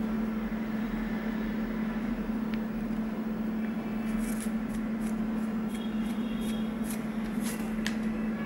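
A steady low electrical or motor hum, with a few faint light clicks and taps in the second half as spice powders are added to a small glass bowl.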